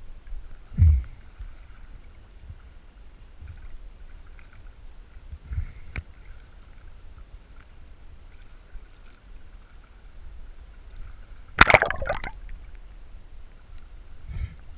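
Sea water lapping and gurgling against a camera held at the waterline, with a few low thumps and one loud, sharp splash-like burst late on.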